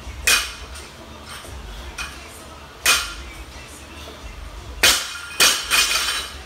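Loaded barbell with bumper plates clanking: a sharp clank soon after the start and another just before three seconds in. Near five seconds the bar is dropped to the rubber floor and lands with a quick run of clanks as it bounces and the plates rattle.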